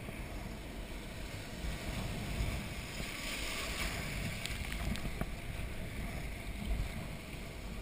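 Wind buffeting the microphone over the wash of breaking surf and water splashing around a sea kayak, the splashing hiss swelling around the middle.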